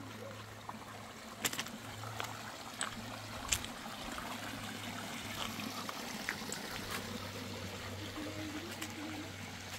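Water trickling steadily, with scattered light clicks and knocks, the sharpest about a second and a half and three and a half seconds in.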